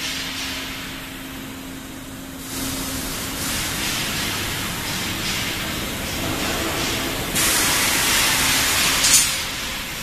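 Steel bar peeling and straightening line running: a steady hiss of machinery with a low hum. It grows louder about two and a half seconds in and again about seven and a half seconds in, with a brief sharp sound about nine seconds in.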